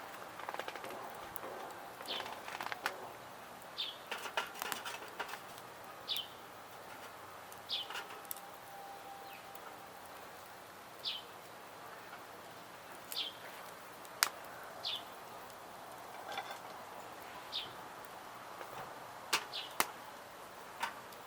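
A bird repeatedly calling a short, high, falling note, about every one to three seconds, over a faint background with scattered sharp clicks.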